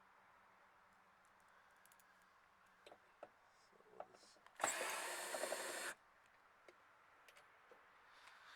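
A cordless drill-driver runs in one short burst of just over a second, backing out a screw from the fridge's housing, and stops sharply. Light clicks and knocks of handling come before it.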